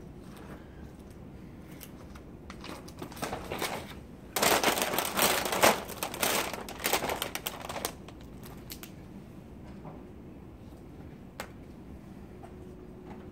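Loud crinkling and rustling close to the microphone for about three and a half seconds in the middle, after a softer rustle leading into it. Quiet room tone otherwise, with a couple of small clicks near the end.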